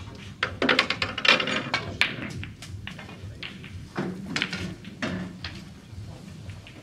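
Snooker cue striking the cue ball, then a quick run of sharp clicks as the cue ball breaks into the pack of reds and the balls knock into each other and the cushions. More scattered knocks follow about four seconds in.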